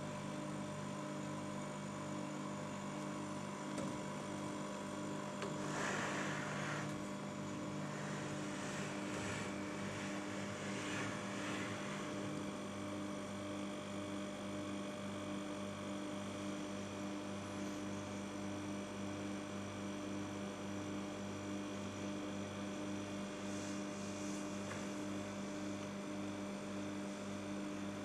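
Small hermetic refrigerator-type compressor, used as a homemade airbrush compressor, running with a steady electric hum. A few brief hisses come in the first half.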